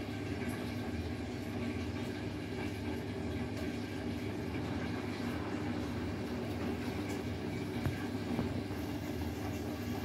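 Beko WTK104121W front-loading washing machine on its rinse: the motor turns the drum with water in it, a steady hum with water noise.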